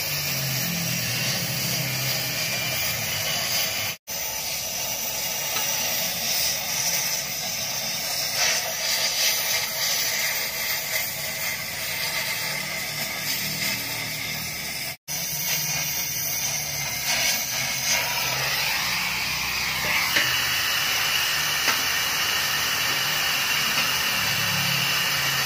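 Gas cutting torch flame hissing steadily as it cuts out the internal baffles of a motorcycle muffler to gut it. The hiss drops out twice, very briefly, at about four and fifteen seconds in.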